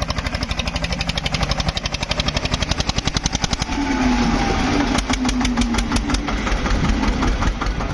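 Tractor diesel engine running with a fast, even beat. A little past halfway it grows louder and rougher, with a low hum.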